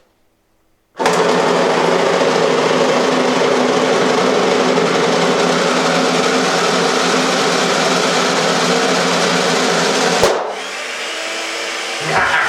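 Electric food mixer switched on about a second in and running steadily at speed with its beaters working against a latex balloon; about ten seconds in a sharp bang as the balloon bursts, after which the mixer runs on more quietly.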